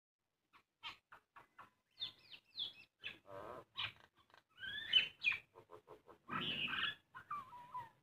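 Common myna calling: a rapid string of short clicks, then whistled notes gliding up and down, a harsh raspy chatter about six seconds in, and a falling whistle near the end.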